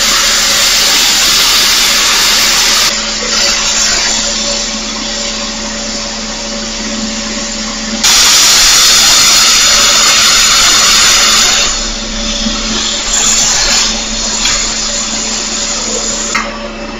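Handheld plasma cutter cutting quarter-inch steel plate: a loud, steady hiss of air and arc over a low hum. The hiss is loudest for the first few seconds and again from about eight to twelve seconds in, and somewhat quieter between and after.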